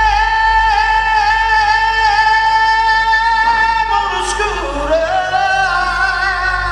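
Live hard-rock band with a male lead singer holding one long high note for about three and a half seconds, then sliding down in pitch and back up, over electric guitars, bass and drums.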